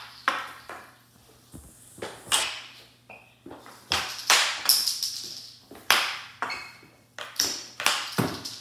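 Mini hockey sticks knocking a ball around on a hardwood floor: a rapid, irregular run of sharp clacks and taps, with a short ring from the room after each.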